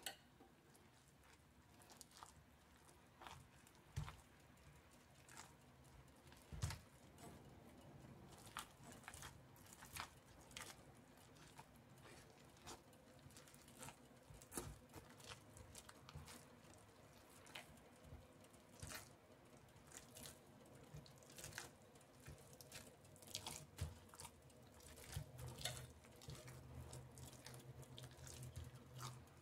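Faint, irregular clicks and scrapes of a metal fork against a metal pan as it stirs and mashes soft squash into powder, with soft squelching of the mixture, getting busier near the end.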